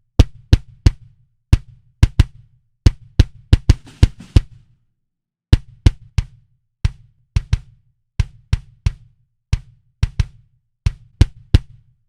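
Solo kick drum playing a repeating pattern, each hit a sharp click with a short low boom. The kick is shaped by an envelope (transient-shaper) plugin's attack and release to give it more punch. A short noisy swish sounds about four seconds in, followed by a pause of about a second before the pattern resumes.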